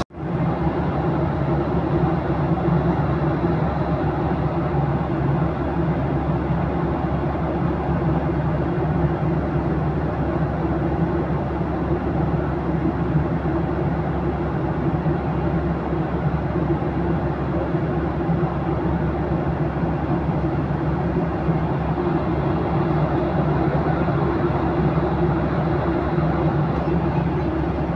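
Steady cabin noise of a Boeing 737-800 in flight: a dense, even rush of engine and airflow noise with a low steady hum underneath.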